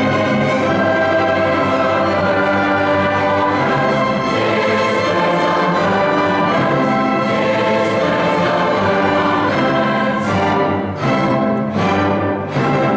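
A large high school choir and symphony orchestra perform together in full, sustained harmony with bowed strings prominent. Near the end the music breaks into a few short, accented chords.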